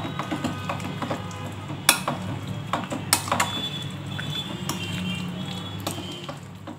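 A metal spoon and hand mixing chicken pieces in a wet yogurt marinade in a glass bowl: scraping, with a few sharp clinks of spoon against glass, the loudest about two and three seconds in. A steady low hum runs underneath.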